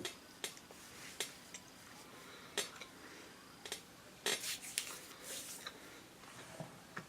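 Close-miked eating sounds: chewing with scattered sharp mouth clicks and light taps, thickest about four to five seconds in.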